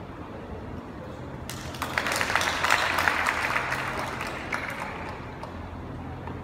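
Spectators clapping, starting about a second and a half in, loudest in the middle and dying away after about three seconds.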